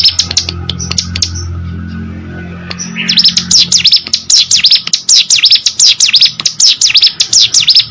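Ciblek gunung (a mountain prinia) singing: a fast, high, rattling run of quick down-slurred notes that stops about a second in, then starts again at about three seconds and runs on without a break. A low hum is heard under the pause.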